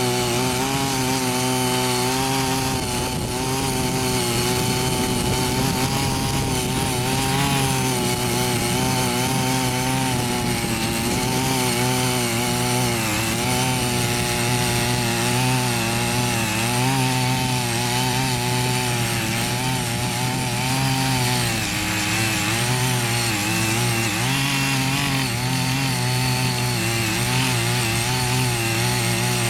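Small engine of a walk-behind mini power tiller running under load while tilling soil, its pitch wavering up and down as it works.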